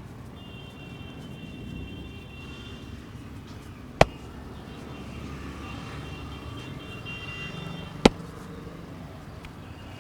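Two sharp, loud snaps about four seconds apart from a street barber's head and neck massage, over steady street traffic noise.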